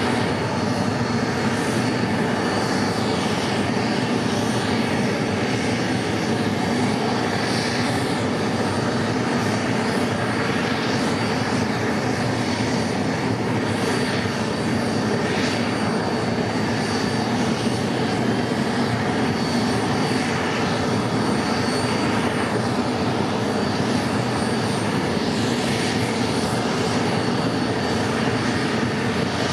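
Dassault Falcon 50 business jet's Honeywell TFE731 turbofan engines running steadily at idle: an even jet noise with a thin high whine held at one pitch.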